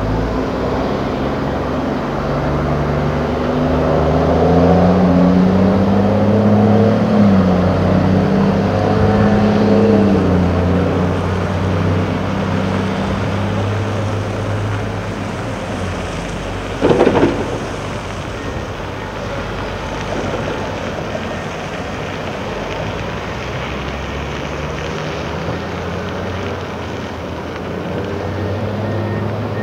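Heavy diesel engine of Komatsu quarry earthmoving machinery working, its pitch rising and falling between about 4 and 10 seconds in as it takes load, then running more steadily. A short loud crash about 17 seconds in stands out above the engine.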